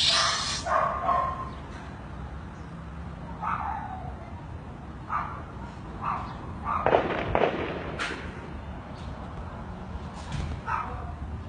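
Dogs barking in short, repeated barks, with a sharp crack at the start and another about eight seconds in, which belong to the shooting the recording set out to capture.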